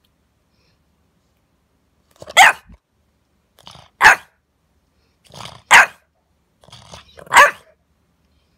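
French bulldog puppy barking four times, about one and a half to two seconds apart, each bark led in by a short, quieter grumble.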